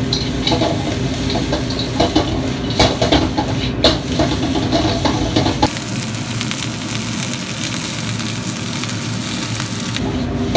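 Fried bone-in beef short ribs being stir-fried with onions and garlic in a wok: tongs clack and scrape against the wok over a sizzle and a low burner rumble, then about six seconds in the clatter stops and a steady, even sizzling hiss remains.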